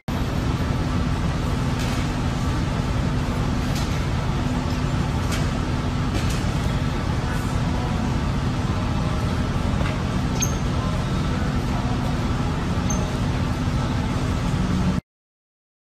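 Steady low rumble of gym background noise with a constant hum and a few faint clicks; it cuts off suddenly near the end.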